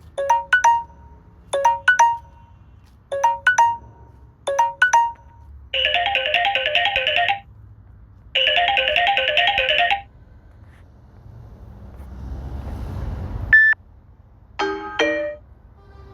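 Samsung Galaxy S8+ preset ringtone and notification tones playing one after another. First comes a short electronic double chirp repeated about every second and a half, then two bursts of trilling ring. After that a rising whoosh ends in a single ding, and a few quick chimes follow near the end.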